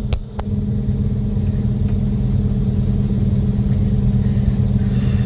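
Semi truck's diesel engine running steadily at low speed, heard from inside the cab as an even low drone. Two short clicks sound just after the start.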